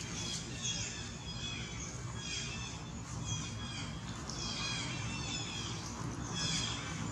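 Young long-tailed macaque squealing repeatedly while pinned in rough play: a series of short, high-pitched falling cries, about one or two a second.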